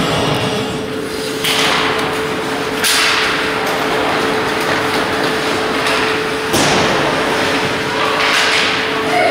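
Ice hockey play echoing around an indoor rink: four sudden knocks and scrapes of puck, sticks and skates against the boards and ice, the first about a second and a half in and the last near the end, over a steady hum.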